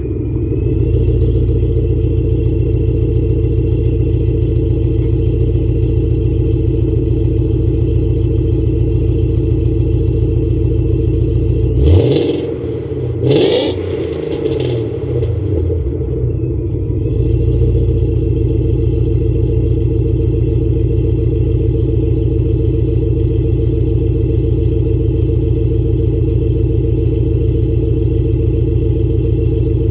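Car engine idling steadily, blipped twice in quick succession near the middle, each rev rising and falling back before it settles to idle again.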